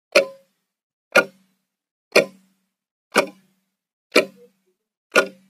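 Wall clock ticking: one tick each second, six in all, with silence between the ticks.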